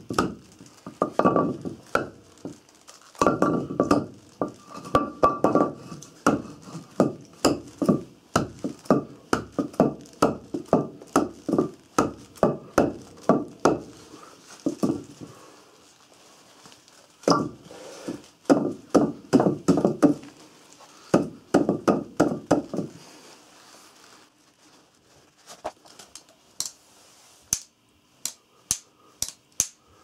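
Spyderco Manix 2 folding knife struck repeatedly against a wooden log in runs of knocks, about two a second, with a pause in the middle: an impact test of its ball bearing lock. Fainter, sharper clicks near the end.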